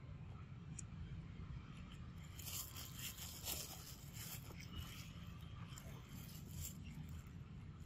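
A monkey biting and gnawing kernels off a cob of corn: a run of crisp crunches and tearing sounds from about two seconds in until near the end, over a low steady rumble.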